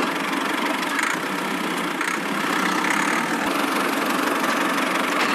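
Small motor of a miniature DIY tractor running steadily.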